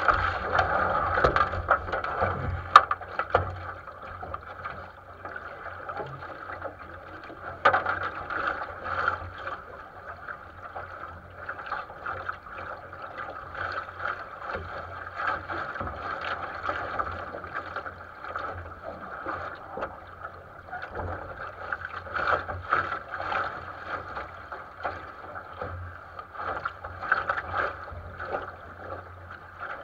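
Water rushing along and slapping against the hull of a 470 sailing dinghy under way, a steady wash with irregular splashes throughout.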